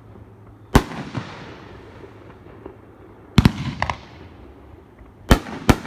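A 500-gram consumer fireworks cake firing its shells: four sharp, echoing bangs, the last two close together near the end, with a few smaller crackles just after the second.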